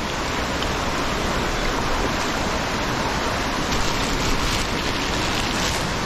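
Mountain stream rushing over rocks and small falls: a steady, even rush of water.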